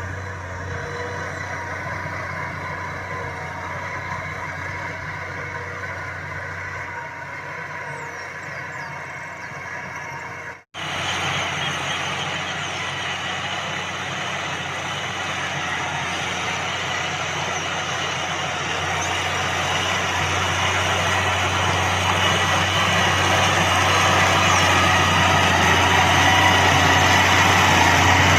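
Large Valmet tractor's diesel engine running steadily under load while pulling a land plane. The sound cuts out for an instant about ten seconds in, then returns louder and slowly grows louder toward the end.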